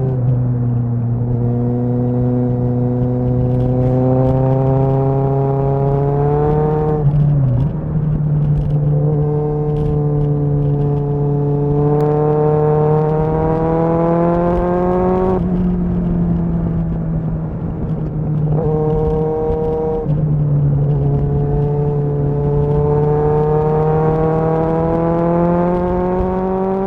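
Kawasaki ZXR's inline-four engine pulling under gentle acceleration while riding, heard from a helmet microphone. The engine note climbs slowly in each gear and dips at several upshifts, about 7, 15 and 20 seconds in.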